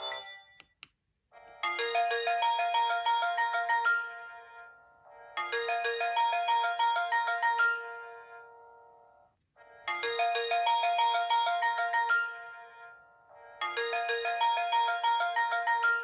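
Samsung E1210M mobile phone's small speaker playing one of its built-in ringtones. A short, bright phrase of several notes at once rings out and dies away, then repeats, four times over with short gaps between.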